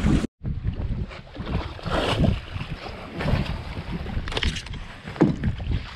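Wind buffeting the microphone on an open boat, uneven and swelling in several gusts, with water washing against the side of the boat.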